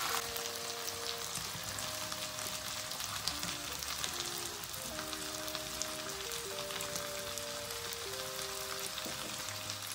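Mutton karahi sizzling in hot oil in a frying pan, a steady crackling hiss, with a soft background music melody over it.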